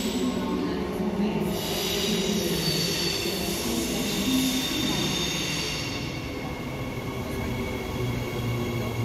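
Transperth B-series electric multiple unit arriving and slowing alongside the platform: a continuous rumble with several high steady tones from its running gear. A lower steady hum comes in near the end.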